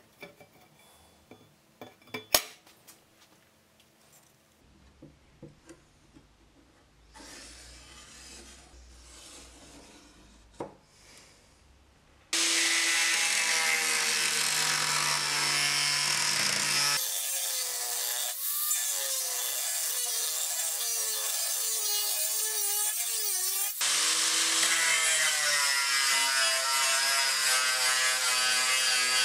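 A few light knocks and clinks as a steel table saw blade is handled on a workbench. Then, about twelve seconds in, an angle grinder's cut-off disc starts cutting into the blade's steel: a loud, steady grinding with a whine whose pitch wavers and dips as the disc bites.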